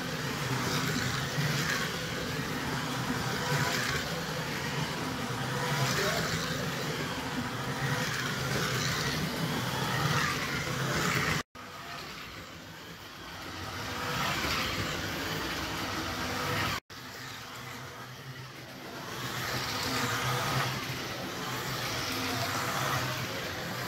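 Scalextric slot cars lapping a plastic track. The whine and rattle of their small electric motors swells and fades about every two seconds as the cars come round. The sound cuts out briefly twice.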